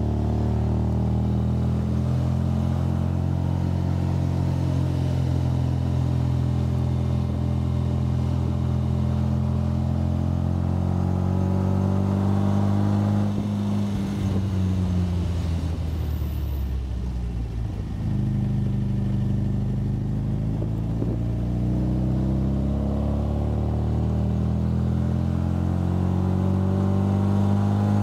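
MGA sports car's four-cylinder engine running under way. Its note is steady, sags about halfway through as the driver eases off, then rises again as the car picks up speed.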